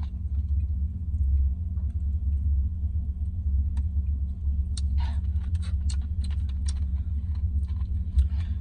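A steady low rumble, with scattered light clicks and taps, most of them about five to seven seconds in.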